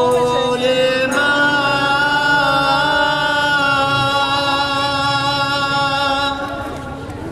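A male street singer holding one long, steady note of a Persian song, accompanied by his acoustic guitar; the note fades away about six seconds in.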